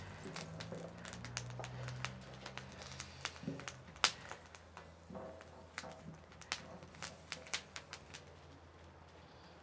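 Wood fire crackling in an adobe wood-burning stove, with irregular sharp pops, the loudest about four seconds in.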